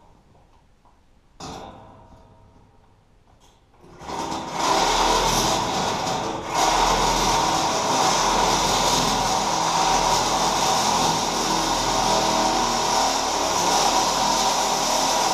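Handheld angle grinder starting up about four seconds in and then running steadily as it cuts into sheet metal, with a steady whine; it gets louder again a couple of seconds after starting.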